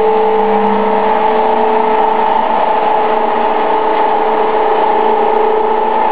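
CNC machine's drive motors giving a steady, loud mechanical whine with several held tones over a hiss as the gantry travels to its start position.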